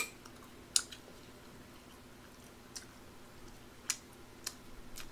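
Chewing, with a few sharp mouth clicks and smacks spread out about a second apart, over a faint steady hum.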